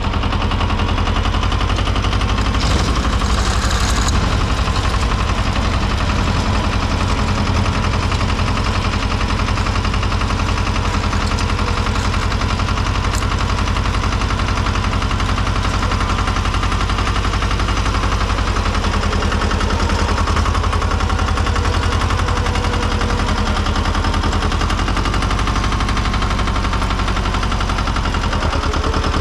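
Tomo Vinković TV 731 compact tractor's engine running steadily with a rapid, even knocking beat, driving its front-mounted snow blower through deep snow.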